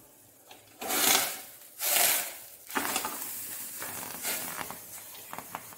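Stainless steel idli steamer being opened and its plate of hot idlis lifted out: three short hissing puffs about a second apart, then a few light metal clinks near the end.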